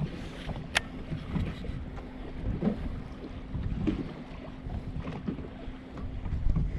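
Wind buffeting the microphone on an open fishing boat, with a faint steady hum under it and one sharp click under a second in.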